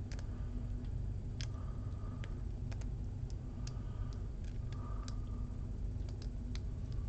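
Irregular, faint metallic clicks of a lock pick and tension wrench working the serrated security pins of an American Lock 1100 series padlock, over a steady low hum.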